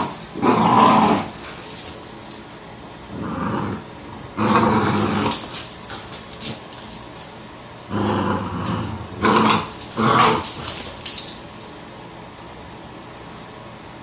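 Cavalier King Charles spaniel puppies growling in play while tussling over a toy, in short bouts with quieter pauses between.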